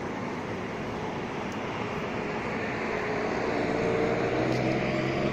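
Street traffic noise, with a motor vehicle's engine drawing closer and growing louder over the last couple of seconds.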